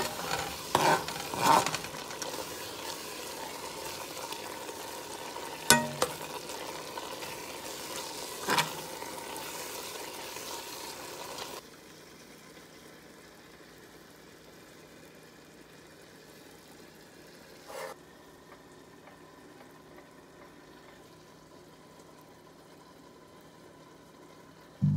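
A spatula scrapes and knocks against a stainless steel pot while spinach and paneer curry sizzles in it, with a sharp knock about six seconds in. A little before halfway the sizzle stops and it goes much quieter, with one more short tap a few seconds later.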